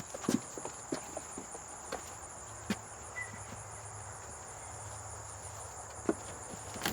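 Steady high-pitched insect chorus, with a faint pulsing trill above it, over scattered light clicks and taps.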